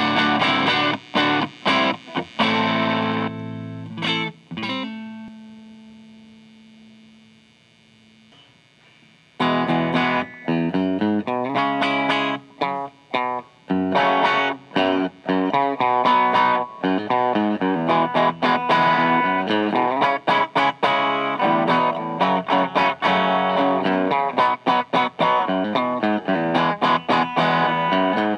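Electric guitar played through a DOD Juice Box FX51 overdrive pedal, chords in a distorted tone. About four seconds in a chord is left to ring and fade away; playing starts again about nine seconds in with quick, choppy chords.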